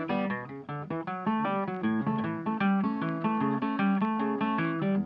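Background music: an acoustic guitar playing a quick run of plucked notes.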